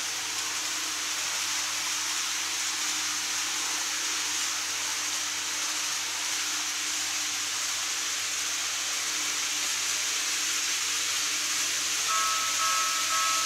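Steady hiss, then, near the end, a model railway level crossing's electronic warning bell starts ringing in high steady tones, signalling that the crossing is about to close for an approaching train.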